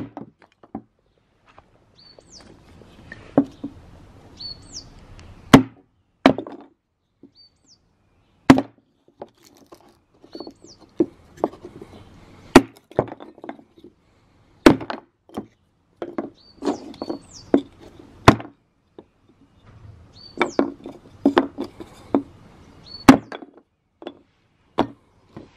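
Restored antique hatchet splitting small softwood blocks into kindling: about a dozen sharp chops into the wood, spaced one to three seconds apart, with lighter knocks of the wood pieces between them. A bird chirps repeatedly in the background.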